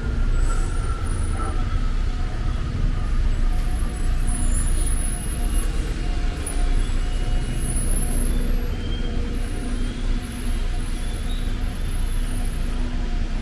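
Slow city street traffic: bus and car engines running, a steady low rumble, with a high whine gliding down at the start.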